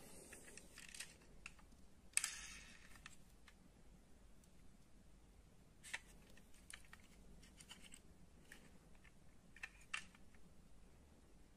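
Faint clicks and light rattling of a small die-cast metal model car turned in the fingers. There is a short scraping rustle about two seconds in and sharp clicks near six and ten seconds, the last as its door is swung open.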